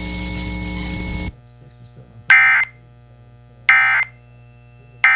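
Emergency Alert System end-of-message code: three short bursts of screeching digital data tones about a second and a half apart, signalling the end of the alert. Before them a steady hum stops suddenly about a second in.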